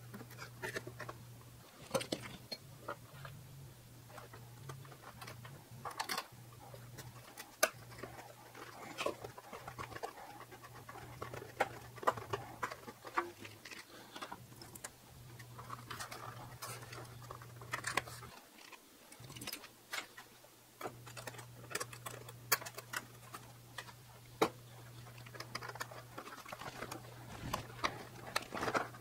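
Irregular small clicks and taps of hands working with small screws, flying-wire fittings and tools on a model biplane at a workbench, over a steady low hum.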